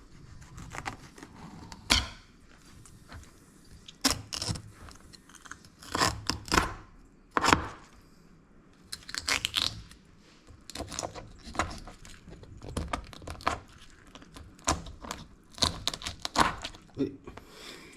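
Knife working through a raw fish being cleaned and cut: irregular scrapes, crunches and knocks, dozens of short strokes with brief pauses between them.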